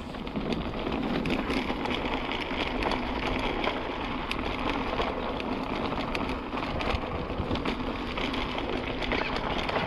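Steady rolling noise from a mountain bike ridden over a rough track, with many small clicks and rattles throughout.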